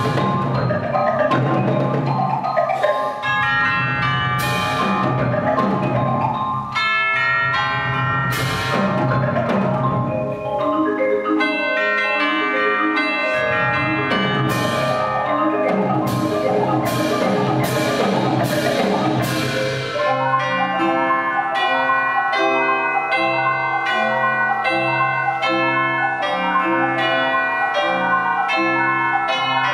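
Marimbas and other mallet percussion playing an ensemble piece. For about the first twenty seconds, rolled chords are held, with sharp, bright strikes ringing out over them. After that the music changes to a steady pattern of short repeated notes.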